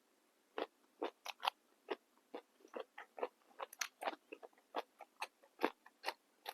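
Close-up chewing of crisp fresh raw vegetables: a run of irregular wet crunches, about three or four a second.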